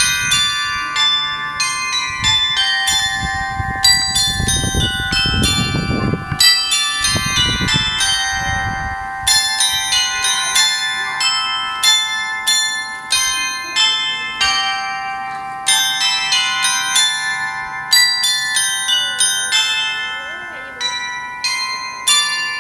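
The bells of the Székesfehérvár musical clock playing a tune: small bells struck one after another in quick runs, each note ringing on over the next. A low rumble sits under the bells for a few seconds near the start.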